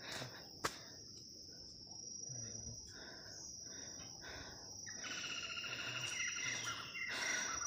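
Steady, high-pitched trill of insects in the orchard, running without a break, with a bird calling from about five seconds in.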